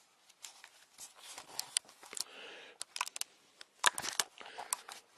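Handling noise close to a camera's microphone: irregular rustling and crinkling with scattered sharp clicks and taps, and a brief hiss around two seconds in.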